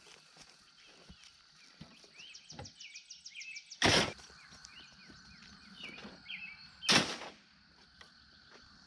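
Steel T-posts dropped onto a pile on the ground: two loud metal clanks about three seconds apart. Birds chirp throughout.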